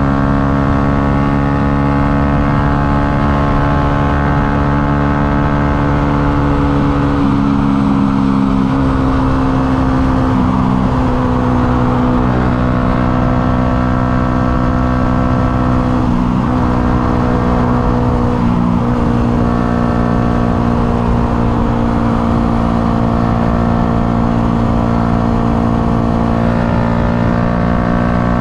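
Yamaha MT-125's single-cylinder four-stroke engine held at high revs near top speed, its pitch steady with a few small shifts. Wind rumbles on the microphone underneath.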